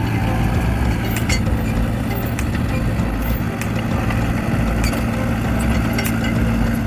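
Mini bulldozer's engine running steadily, with scattered sharp metallic clicks and clinks over it.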